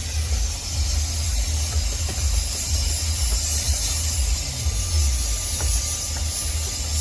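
Dyson cordless stick vacuum running steadily: an even airflow hiss with a thin high whine over a low rumble.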